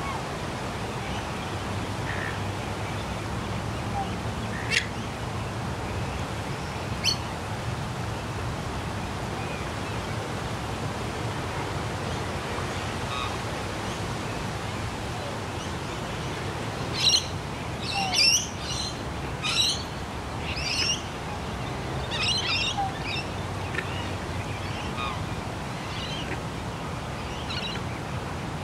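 Birds chirping: a few single calls, then a run of louder, sharp chirps from about 17 to 23 seconds in, over a steady low rumble of distant traffic.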